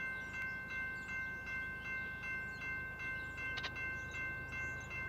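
Railroad grade crossing bell ringing steadily at about two and a half strikes a second, warning of an approaching train, over a low steady rumble.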